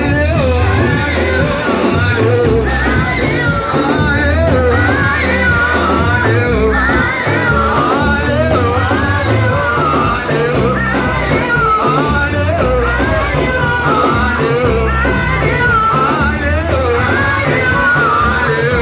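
Live church worship music: voices singing over a band with a steady bass line, continuous throughout.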